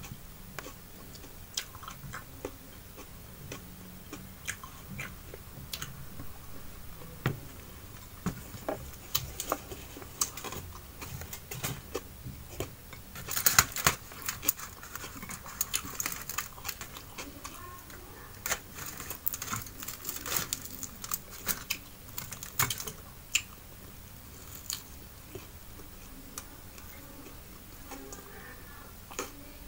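Close-miked eating sounds: fingers picking at a fried fish on aluminium foil, with small crinkles and clicks, mixed with chewing and mouth smacks. The clicks come scattered throughout and bunch up into quick flurries around the middle.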